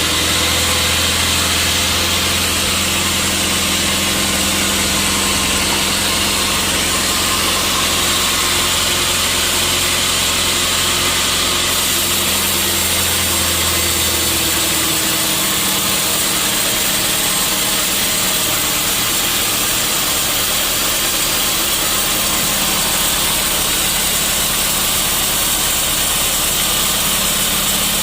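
Sawmill machinery running steadily with a loud, even mechanical noise. A low hum underneath drops out about halfway through.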